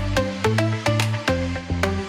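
Instrumental electronic dance-pop (kawaii future bass style) with a steady beat of short plucked synth notes over sustained bass notes; no vocals.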